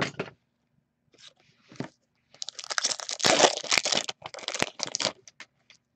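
Trading cards being shuffled through by hand, card stock rustling and scraping against card stock. There are a few light ticks at first, then a dense rustle lasting about three seconds, then a few more ticks.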